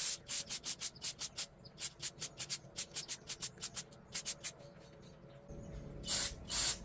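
Cleaning an engine oil squirter: about four and a half seconds of quick, short hissing strokes, roughly five a second, then, after a lull, two longer bursts of brake-cleaner aerosol spray near the end.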